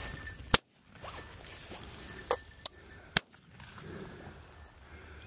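Shotgun fired at a flushed pheasant, with low-brass number 6 shells: one loud shot about half a second in, then a few more sharp cracks between two and three seconds in, the last of them another shot.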